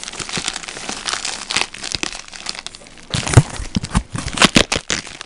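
Plastic packing material and bubble wrap crinkling and rustling as hands dig through a cardboard shipping box, with a few louder crackles in the second half.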